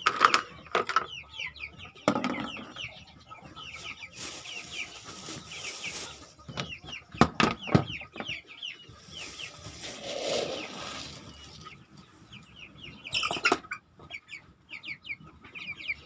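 A flock of young white broiler chickens peeping, with many short, falling chirps. Several sharp knocks and two stretches of rustling come from the feeder being handled.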